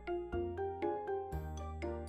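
Instrumental background music: a melody of short notes over a steady low bass.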